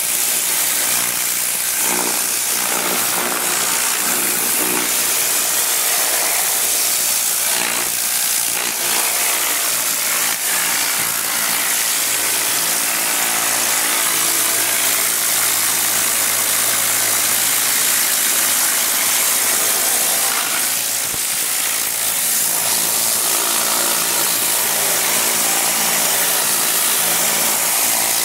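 Tornador compressed-air cleaning gun blowing air and cleaning solution over an engine bay: a loud, steady hiss with a steady mechanical hum underneath.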